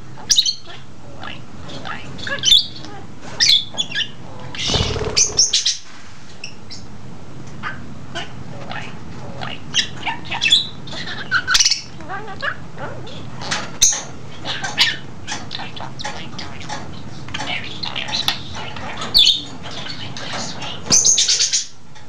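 Budgie chattering: a continual run of short, high warbled chirps and squawks, with a brief noisy rustle about five seconds in and a louder, harsher squawk near the end.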